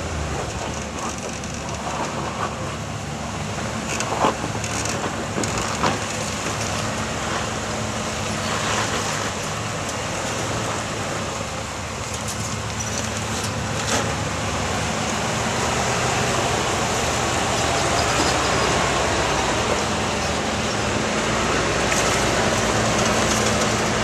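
Lifted off-road 4x4 engine running at low revs while crawling over boulders, with a few sharp knocks as it works over the rocks. It grows louder in the second half as the vehicle comes close.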